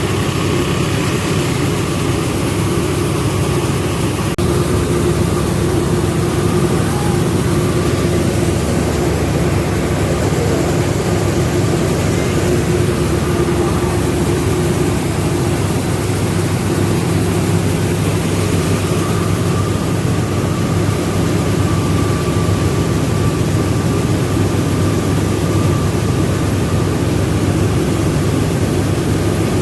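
Rice milling machinery running steadily: a loud, even mechanical drone with a couple of faint steady tones over it, unchanging throughout.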